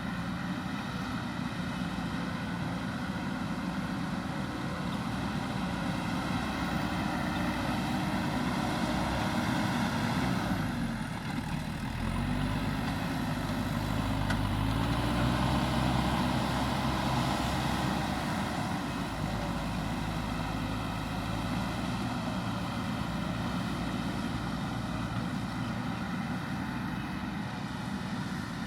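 Diesel engine of a heavy earthmoving machine running steadily under work. It dips briefly about eleven seconds in, then pulls harder and deeper for several seconds before settling back to its earlier note.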